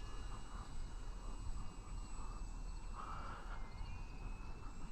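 Faint high whine of a small electric RC plane's motor and propeller in flight, wavering slightly in pitch, over a low rumble on the microphone.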